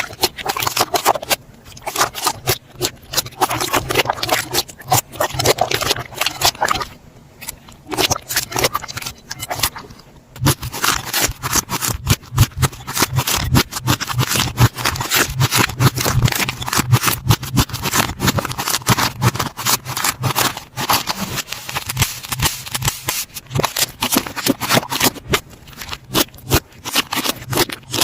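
Slime being squished and pressed by hand, a dense run of small sticky clicks and crackling pops. There are brief lulls about seven seconds in and again around ten seconds.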